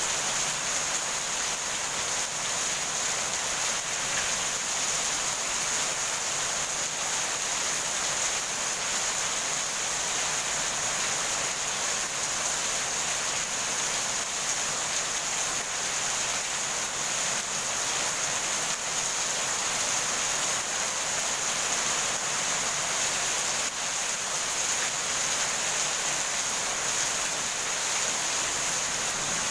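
Heavy rain falling steadily, an even high hiss.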